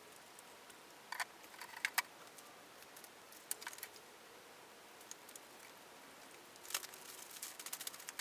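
Scattered light clicks and small knocks of pressure washer parts being handled during assembly, with a quicker run of clicking and rattling near the end.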